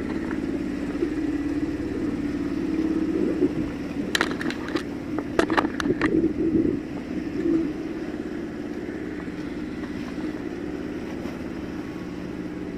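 Small engine on a bangka outrigger boat running at a steady drone. Several sharp knocks or splashes come about four to six seconds in.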